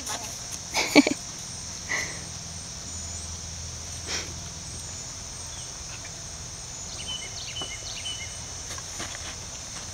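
Steady high-pitched insect chorus, with a few short knocks; the loudest knock comes about a second in.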